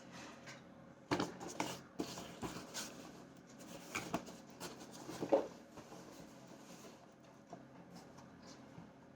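Handling noises: irregular light clicks, taps and rustles of packaging and small parts being handled, busiest in the first half and thinning out after about six seconds.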